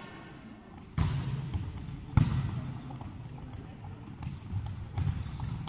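A volleyball being struck during a rally: a sharp hit about a second in and a louder, sharper one just after two seconds, with a few fainter knocks after, echoing in a large hall.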